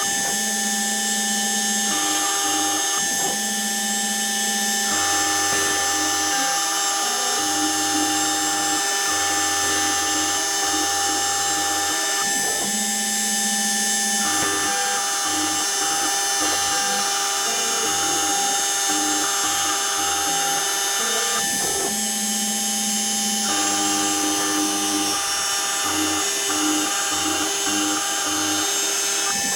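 Home-made CNC engraver cutting: a steady high spindle whine, with lower motor tones that switch pitch every second or few seconds as the machine moves through the engraving.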